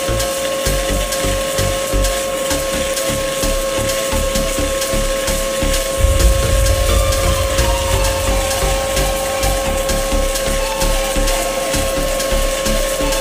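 Stick-welding arc crackling steadily as a 2.6 mm 7018 electrode runs a vertical-up root pass, a little louder from about halfway in. A steady high whine runs underneath.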